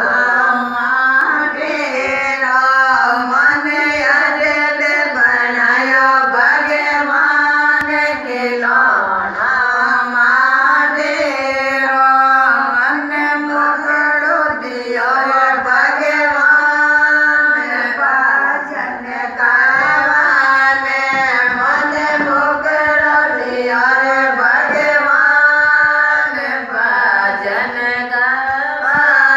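A group of women singing a Marwari Ratijoga devotional song (geet) together in a chant-like unison melody.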